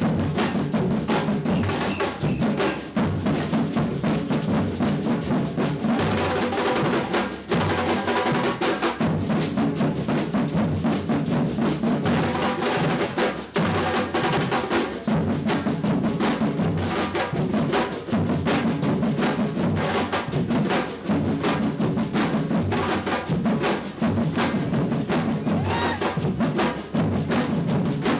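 Samba percussion band (batucada) playing a steady, dense drum groove, with bass drums underneath and sharp clicking strokes on top.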